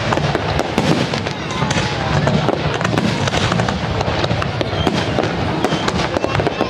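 Fireworks going off in rapid succession, a dense run of crackles and bangs with a few short whistles, over music playing.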